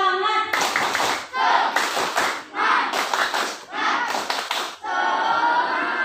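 A crowd of schoolchildren singing and chanting together in unison, with clapping; in the middle the voices turn to a string of loud shouted syllables about two a second, then go back to a sung line.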